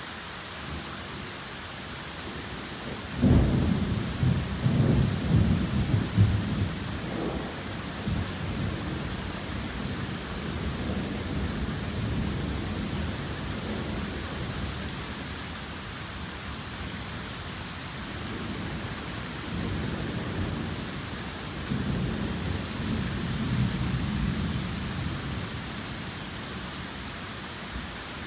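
Torrential rain pouring steadily. About three seconds in, a sudden thunderclap breaks into a long rolling rumble. The rumble dies down, swells again about twenty seconds in, then fades under the rain.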